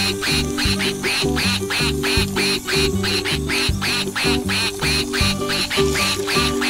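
Bouncy background music overlaid with a rapid, even run of duck quacks, about five a second.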